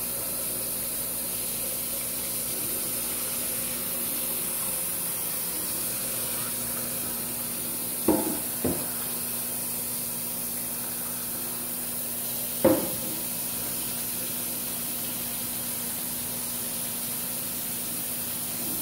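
Tap water running steadily into a pot as rice is rinsed by hand. Two short knocks come about eight seconds in and another about thirteen seconds in.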